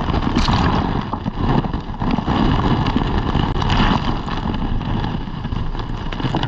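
Shallow waves washing in over a pebbly, shelly shore right at the microphone, with a steady heavy rumble of surf and wind on the microphone.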